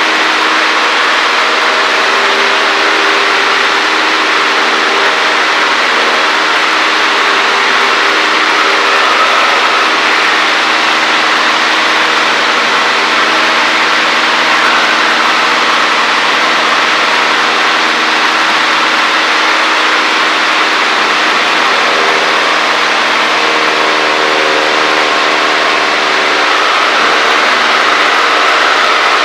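Cessna 152's four-cylinder Lycoming engine and propeller running steadily in flight, heard inside the cockpit as a loud, even drone. The engine note shifts slightly about three-quarters of the way through.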